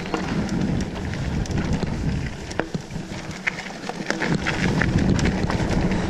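Mountain bike rolling down a dirt forest trail: a steady rumble of knobbly tyres on soil, with many quick rattles and clicks from the bike and loose ground.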